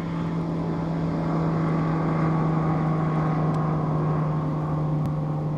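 Boat motor running with a steady, unchanging hum.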